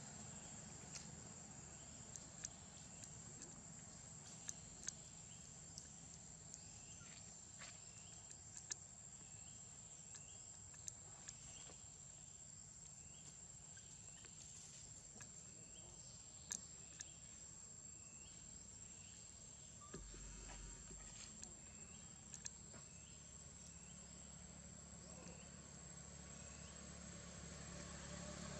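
Faint forest ambience: a steady high-pitched insect drone, with a soft short chirp repeating at an even pace through most of it and scattered light clicks.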